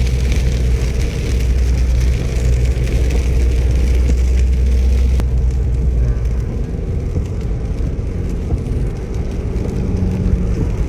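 Car driving on a rain-wet road: a steady engine hum under the hiss of tyres on water. The hum and hiss ease off about halfway through.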